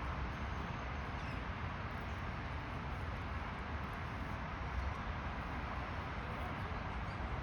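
Steady outdoor background noise, a low rumble with a hiss over it, and a few faint small clicks.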